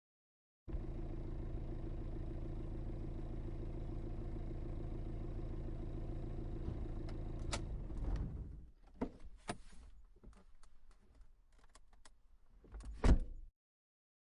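A car engine running steadily, heard from inside the car, then shutting off about eight seconds in. A few sharp clicks follow, and near the end a car door slams shut with a loud thump.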